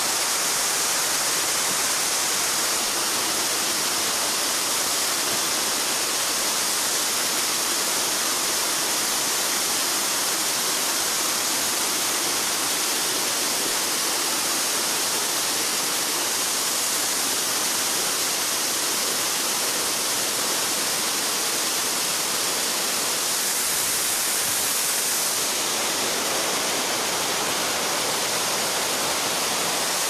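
Steady rush of a 20-metre waterfall on a small river, an even hiss of falling water heavy in the highs and light in the lows, unchanging throughout.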